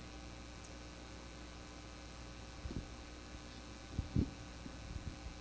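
Steady low electrical mains hum, with a few dull low thumps about two and a half seconds in and again just after four seconds, the latter the loudest.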